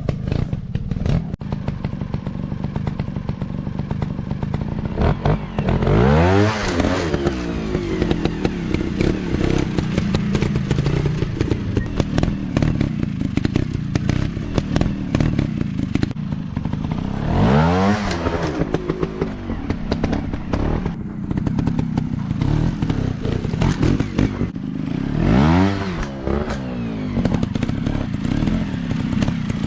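Trail motorcycle engines running with a steady drone, revved up and back down three times, with scattered clattering knocks throughout.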